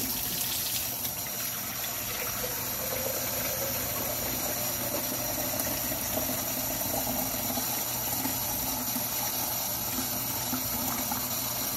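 Kitchen faucet running steadily into the sink; partway through, the stream goes into a plastic chick-waterer jar and fills it.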